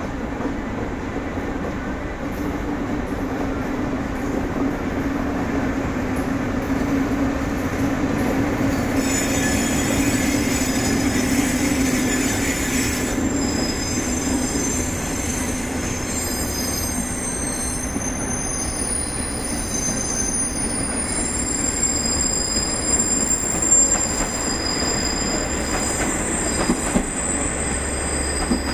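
Electric-locomotive-hauled train of empty Chiki 5500 long-rail flat wagons rolling slowly past, its wheels rumbling with a low hum that fades out about two-thirds of the way through. From about a third of the way in, the wagons' wheels give high-pitched squeals, with a few sharp clicks near the end.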